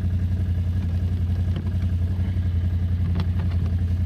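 Can-Am ATV engine idling steadily with an even low pulse, a few light clicks sounding over it about halfway through and near the end.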